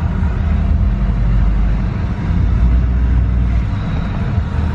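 Steady low rumble of a pickup truck heard from inside the cab as it rolls slowly along: engine and road noise.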